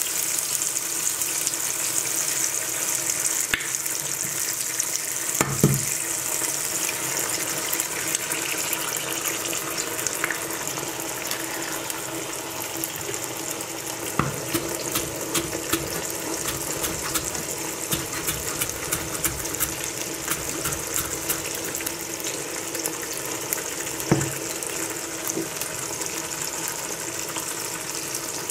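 Eggs and tomato slices frying in oil in a pan: a steady sizzle, with a few scattered knocks.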